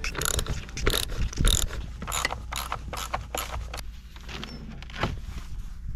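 Hand socket ratchet wrench clicking on the bolts of a snowmobile ski, in short runs of clicks as the handle is swung back and forth, with a brief pause about four seconds in.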